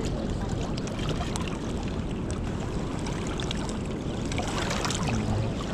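Steady rushing noise of a river flowing past rocks at the water's edge, with a few faint clicks.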